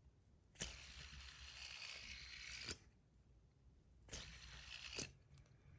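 A handheld metal fidget spinner is flicked into a spin with a sharp click and whirs quietly on its bearing for about two seconds before it is stopped with another click. A second, shorter spin of about a second follows, also started and stopped with a click.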